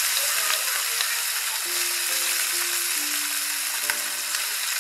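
Small marinated fish sizzling as they fry in hot soybean oil in a pan, a steady crackling hiss with a couple of light clicks as pieces are laid in. Soft background music plays underneath.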